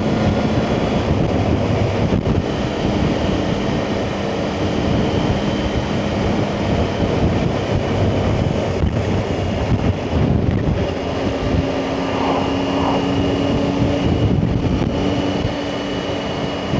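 Motorcycle engine running at road speed with wind rushing over the microphone; the engine note shifts a little higher about eleven seconds in.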